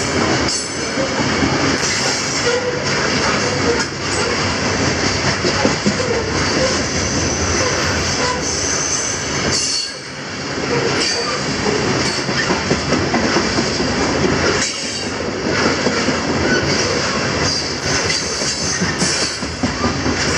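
Loaded CSX coal hopper cars rolling past at close range. The steel wheels clatter steadily over the rail, with a thin high wheel squeal coming and going. The noise dips briefly about halfway through.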